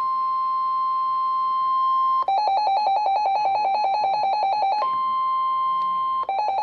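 Weather-radio alert tone: a long steady tone just above 1 kHz, the NOAA Weather Radio warning alarm tone. It breaks off twice, about two seconds in and again near the end, into a rapid alternating beep of about six pulses a second, sounding an incoming severe-weather warning.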